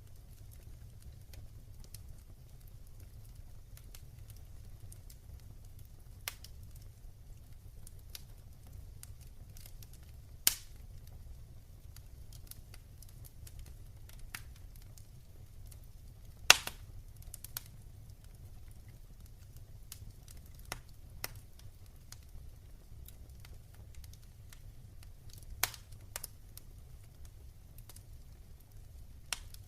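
Wood fire burning in a fireplace: a low steady rumble of flames with sparse sharp crackles and pops. The two loudest pops come about ten and sixteen seconds in.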